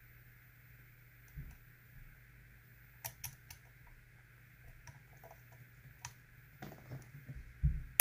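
Faint metallic clicks and scratches of a hook pick lifting the strongly sprung pins of a Lockwood pin-tumbler cylinder under tension, the sharper clicks being pins setting at the shear line. A few clicks come about three seconds in and another about six seconds in, with soft handling noise near the end.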